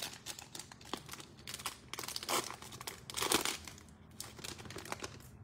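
Panini Prizm trading-card pack's foil wrapper crinkling as it is torn open by hand, with louder rustles about two and three seconds in.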